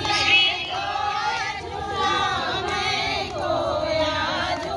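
Several voices singing a Bagheli Sawan folk song together, their melodic lines overlapping.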